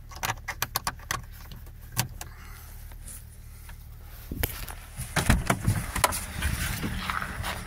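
Renault Megane 1.9 dCi diesel engine idling steadily just after a −23°C cold start, first muffled inside the cabin under clicks and rattles of handling. About four and a half seconds in, a car door opens with a few knocks, and the engine grows louder.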